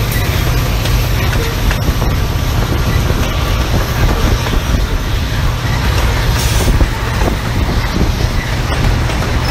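Covered hopper cars of a freight train rolling past close by: a steady rumble of steel wheels on the rails, with occasional clicks.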